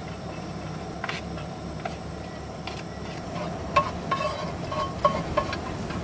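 Minced garlic sizzling in oil in a warm non-stick skillet while a silicone spatula scrapes it off a paper plate and pushes it around the pan. Short scrapes and light clicks come in the second half, over a steady low hum.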